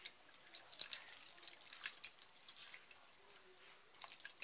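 Liquid milk poured in a thin stream into a pot of mutton rezala gravy, splashing faintly with scattered small drips and ticks.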